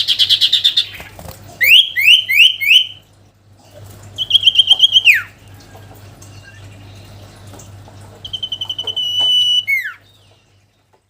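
Loud songbird phrases from a sirtu lure call: a fast stuttering burst, then four quick rising whistled notes, then a rapid trill that falls away at its end. A second rapid trill closes with two downward-slurred whistles. A steady low electrical hum runs underneath.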